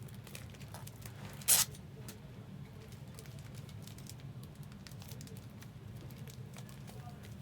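Foil trading-card pack wrappers crinkling and cards being handled, with small scattered clicks and one short, loud tearing rasp about a second and a half in, over a steady low hum.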